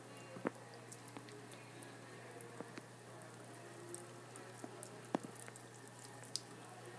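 Faint trickle of a thin stream of tap water from a bathroom faucet falling into the sink, with small irregular ticks and splashes as a cat laps at the stream.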